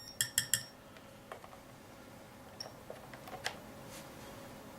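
Three quick, high beeps from a battery-powered sounder keyed by a homemade hacksaw-blade Morse key, then a few light clicks from the key. The tone is faint, its battery running very weak.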